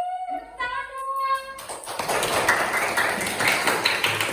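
A voice holding a long, drawn-out note, then a group clapping, starting about a second and a half in and growing louder.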